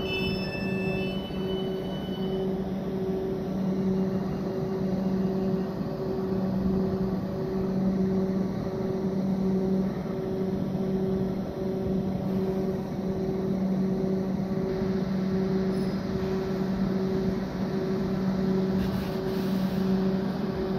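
South Western Railway electric multiple unit standing at the platform, humming steadily: a low drone that swells and fades unevenly over a hiss of machinery.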